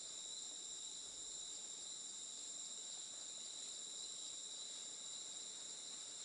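A steady, high-pitched chorus of insects, unbroken and unchanging throughout.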